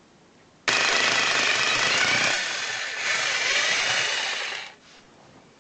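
Rotary hammer drill boring into a brick chimney wall: it starts abruptly under a second in, runs loud and steady for about four seconds, then stops.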